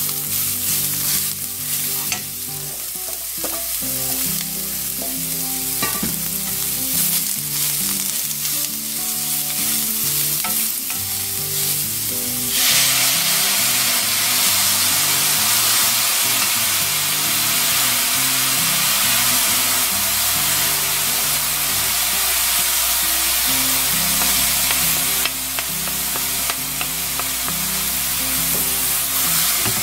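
Julienned burdock root sizzling as it is stir-fried in a hot pan, with the scrape and clatter of a wooden spatula turning it. About twelve seconds in the sizzling turns suddenly louder and stronger as soy sauce goes into the pan.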